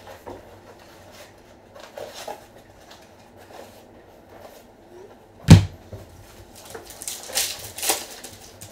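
Tabletop handling noises as trading cards and packs are worked through: scattered faint clicks, one sharp knock about five and a half seconds in, then a stretch of rustling near the end.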